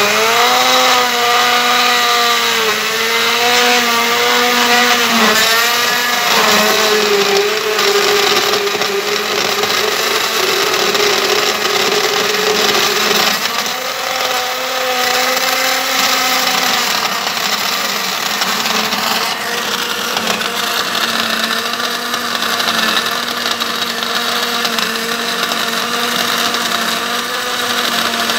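Countertop electric blender running, its motor blending ice cubes and fruit into a smoothie. It starts right at the beginning with a rising whine that wobbles in pitch for the first six or so seconds as the ice and fruit churn, then settles into a steadier hum as the mix turns smooth.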